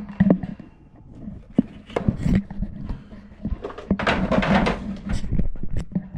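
Clunks, knocks and clatter of stored items being shifted and handled in a cluttered shed, with a louder stretch of rustling and scraping about four seconds in, over a faint steady hum.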